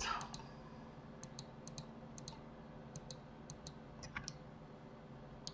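Computer mouse clicking, faint: short double clicks (button press and release) every half second or so, as mesh faces are clicked to select them one by one.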